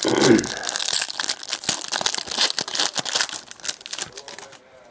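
Crinkling and tearing of a trading card pack's wrapper as it is ripped open: a dense run of sharp crackles that thins out and fades near the end.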